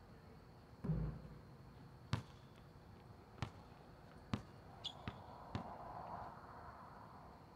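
Basketball bouncing on an outdoor asphalt court: a heavier thud about a second in, then single sharp bounces roughly a second apart as the ball is dribbled, with a brief high squeak near the middle.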